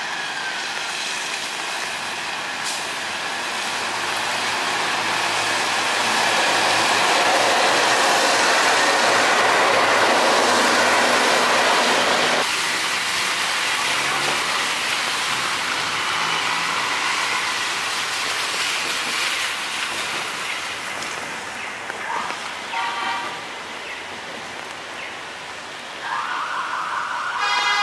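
Light rail trains and wet-street traffic in the rain: a steady hiss of tyres and rain that swells for several seconds as a train goes by, then changes abruptly. Short repeated tones sound twice in the last few seconds.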